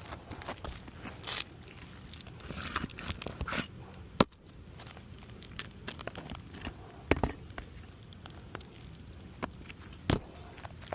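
Asphalt roof shingles being pried up and worked loose, crackling, tearing and scraping, with three sharp knocks along the way.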